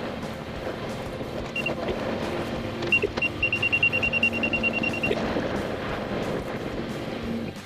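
Kubota compact track loader running steadily, with a rapid run of high electronic beeps from about three to five seconds in and a couple of single beeps before it.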